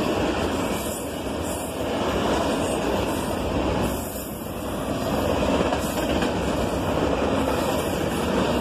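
Norfolk Southern double-stack intermodal well cars rolling past at speed: a steady rumble and rush of steel wheels on rail, easing briefly about halfway through.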